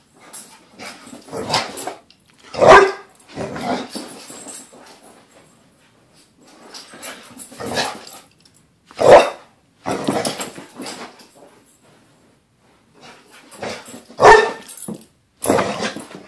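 Pit bull giving excited, happy vocal bursts of barks and growls in irregular clusters, with short pauses between them; the three loudest come at about 3, 9 and 14 seconds in.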